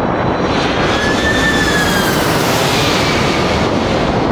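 Jet airliner on landing approach, a Boeing 767-381ER: engine whine and rushing air swell in the middle and the whine drops slightly in pitch as it passes, over wind noise on the microphone.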